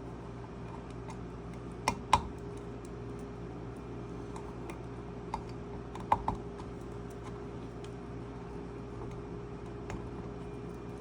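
Small plastic clicks and taps as wire connectors are pushed one by one onto header pins on a circuit board, with two pairs of louder clicks and fainter ticks between them, over a steady background hum.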